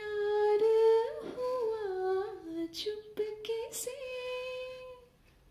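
A woman singing unaccompanied into a handheld karaoke microphone: a slow melody of held notes with gliding turns, ending on a long held note that fades out near the end.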